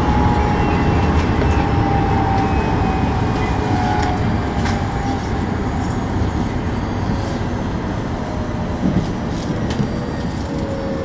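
Keikyu New 1000 series electric train running, heard from the driver's cab: a steady rumble of wheels on the track with a faint motor whine that slowly falls in pitch as the train slows on the approach to a station. A few light clicks sound from the track.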